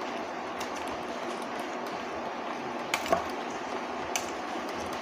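Metal tongs tossing blanched greens in a stainless steel pot, clinking a few times against the rim, loudest in a quick pair about three seconds in, over a steady hiss.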